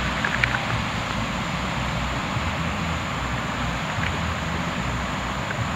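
Steady rushing noise of waves breaking, with wind buffeting the microphone as an unsteady low rumble.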